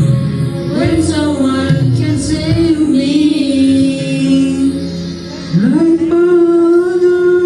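A man and a young boy singing a slow song together into microphones, with music. Near the end the voice slides up into a long held note.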